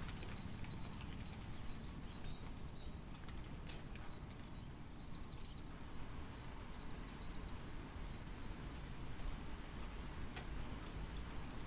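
Quiet storm ambience between thunderclaps: a steady low rushing background with faint bird chirps, mostly in the first few seconds and again near the end, and a few soft ticks like drips.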